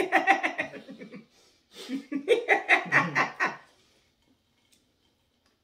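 A woman laughing in two bouts, with rapid pulses of voice: one right at the start lasting about a second, and a longer one from about two seconds in, ending a little before four seconds.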